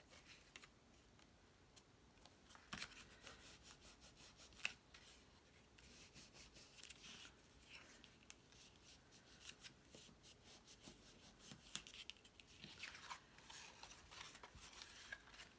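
Faint rustling and light ticking of cardstock being handled and pressed by hand, with a couple of sharper clicks early on.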